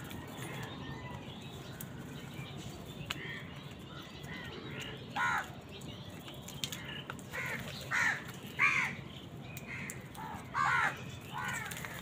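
House crows cawing: a string of harsh caws from several birds in the flock, starting about five seconds in and coming more often in the second half.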